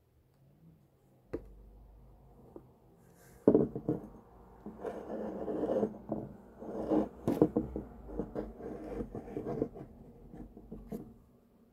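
Handling noise of a glass perfume bottle being picked up and moved about by hand: a single click, then a sharp knock about three and a half seconds in, followed by several seconds of irregular scraping, rubbing and small clicks that die away near the end.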